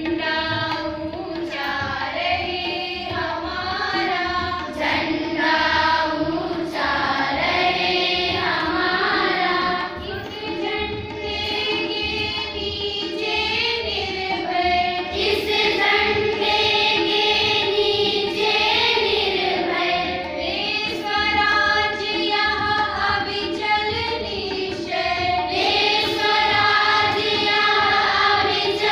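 A group of girls and women singing a song together in chorus.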